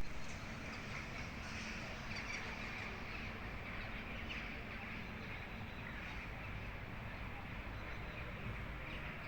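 A flock of crows calling, many faint overlapping caws, over a steady low background rumble.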